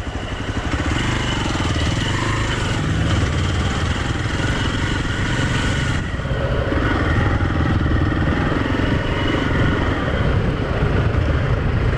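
Motorcycle engine running, its level building over about the first second and then holding steady, with a brief dip about halfway through.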